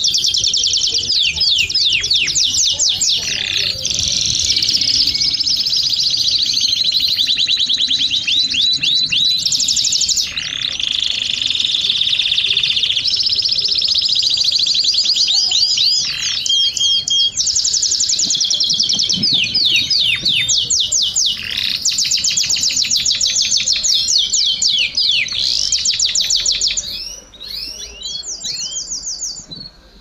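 Canary singing a long, continuous song of fast trills and rolls, changing from one rolling phrase to the next and fading near the end.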